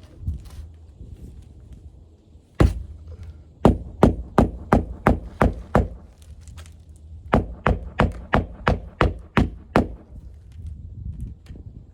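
Hand hammer driving roofing nails through an asphalt shingle into the roof deck: one blow, then two runs of quick, evenly spaced strikes, about seven and then about eight, roughly three a second.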